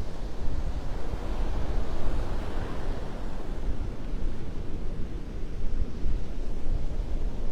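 Wind buffeting the microphone with a low rumble, over a steady wash of surf that swells about two seconds in.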